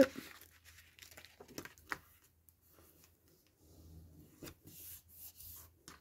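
Paper rustling and rubbing as hands handle and smooth down a strip of paper on a cutting mat, with a few light taps.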